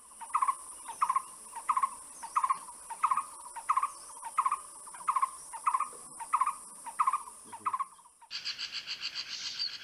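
A bird repeating a short, even note about every two-thirds of a second, over a steady high-pitched insect drone. About eight seconds in, the sound changes suddenly to faster, higher chattering calls.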